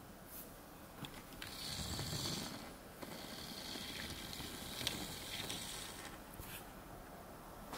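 Faint small-motor whirring in two stretches, with a thin steady whine and a few light clicks, from a camera zoom lens driving in.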